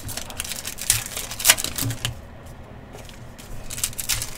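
Football trading cards being handled and flipped through during a pack break: irregular quick clicks and rustles of card against card, the loudest about a second and a half in.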